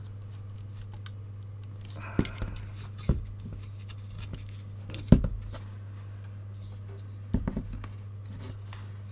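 A circuit board with a metal shield box being handled and set down on a desk: a few separate knocks and clatters, the loudest about five seconds in, over a steady low hum.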